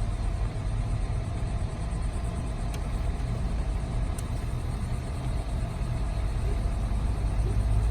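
Steady low rumble with a faint steady hum, unbroken and fairly loud.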